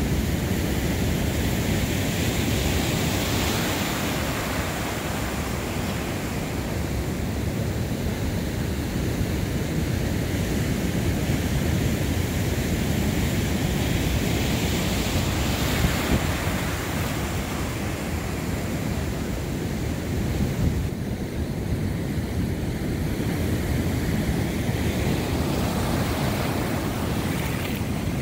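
Heavy storm surf breaking and washing across the beach at high tide, its hiss swelling several times as waves break, with wind buffeting the microphone in a steady low rumble.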